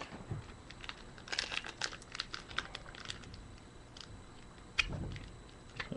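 Trading cards and a foil pack wrapper being handled: scattered light clicks and crinkling, with a soft thump near the end.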